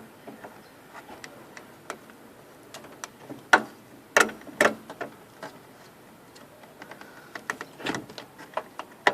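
Scattered clicks and knocks of car door handle parts and the metal linkage wire being handled and fitted into the door, with a few louder clacks about three and a half to five seconds in and another near eight seconds.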